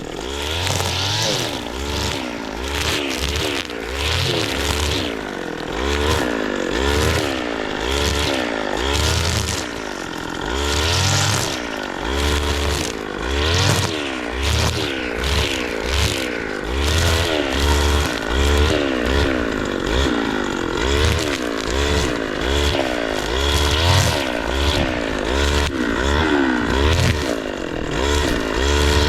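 Petrol brush cutter (motorised slasher) running, its small engine revving up and dropping back again and again as it cuts down old crop plants.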